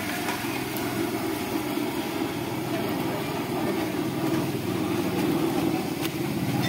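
Pakoras deep-frying in hot oil in an iron karahi, the oil sizzling steadily, over a steady low engine-like drone. A light click near the end, likely the skimmer touching the pan.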